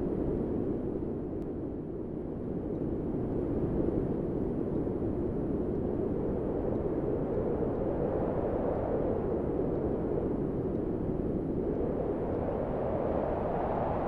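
Typhoon wind sound effect: a steady rushing of strong storm wind, swelling in gusts about halfway through and again near the end.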